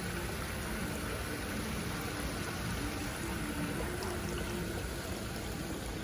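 Water falling and trickling from running decorative water fountains, a steady splashing.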